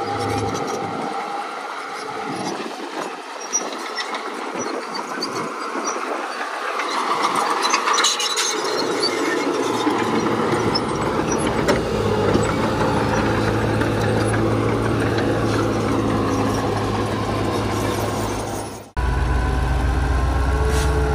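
Heavy earthmoving machinery at work: metallic grinding and squealing over a running diesel engine, with the engine's deep steady note coming in about halfway. Near the end the sound breaks off suddenly and resumes with the engine louder.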